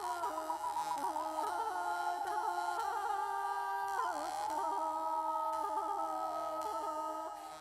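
Music: a melody of long held notes that slide from one pitch to the next over a sustained lower tone.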